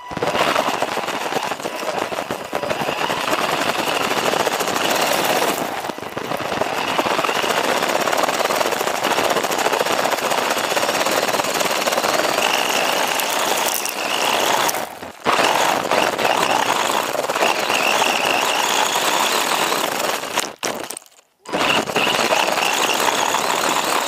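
Onboard sound of a WLToys 144001 1:14-scale RC buggy driving over gravel and dirt: a dense rattling crunch of grit and stones against the chassis and wheels, with a high whine from the motor and gears coming and going. It drops out briefly twice, about fifteen and twenty-one seconds in, as the throttle comes off.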